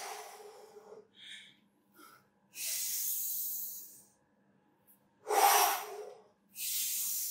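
A man taking slow, deep breaths in and out, about two full breaths, the loudest out-breath a little past halfway. These are recovery breaths at the end of a cardio warm-up.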